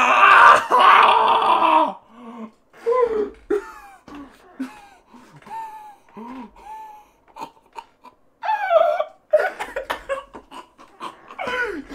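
A man laughing hard: a loud outburst in the first two seconds, then breathless, wheezing laughs and gasps in short broken bursts.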